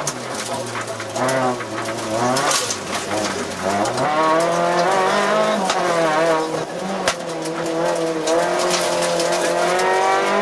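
Renault Clio Williams rally car's 2.0-litre four-cylinder engine heard from inside the cabin, driven hard on a stage. The revs drop early on, then climb again through gear changes and stay high, over a haze of tyre and road noise.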